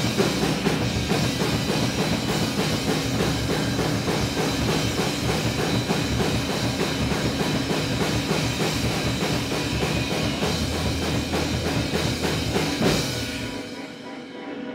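Live experimental band playing really loud: heavy drums and bass guitar mixed with electronics, dense and pounding. Near the end the drums and bass drop away, leaving quieter sustained tones.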